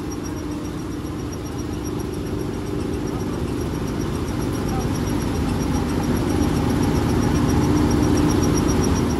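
Combine harvester running with its unloading auger going, paddy grain pouring from the spout into a tractor trolley: a steady engine and auger drone over the hiss of falling grain, growing slowly louder.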